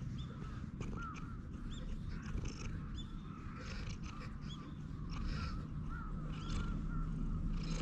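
Tabby cat purring steadily as it is stroked under the chin, with birds chirping in short calls in the background.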